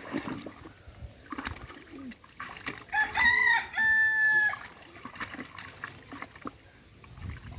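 One loud drawn-out call, a few short bending notes followed by a long held note, about a second and a half in all, with faint splashing and knocks around it.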